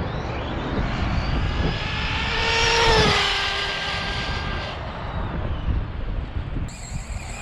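Electric RC car's motor whining as it speeds past, the pitch climbing to its loudest about three seconds in and then falling away, over a steady low rumble.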